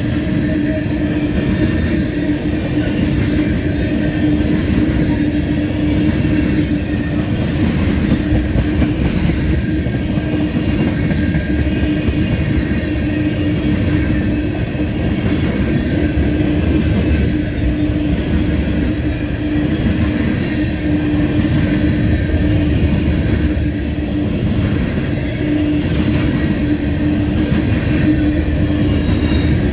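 Tank cars of a crude oil freight train rolling past on the rails: a steady, loud rumble of wheels on track with a steady hum running through it.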